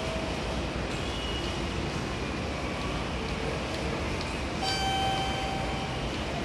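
Railway station concourse ambience: a steady hum and noise, with a held electronic tone lasting about a second and a half starting a little past the middle.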